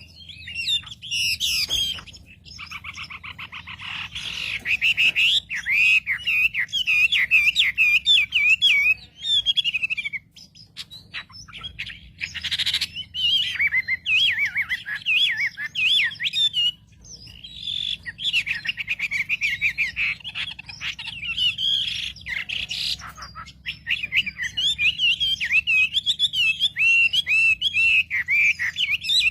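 A wambi songbird singing fast, twittering phrases of high chirps, in long bursts broken by a few short pauses. The song is played as a provocation call meant to rouse other wambi birds.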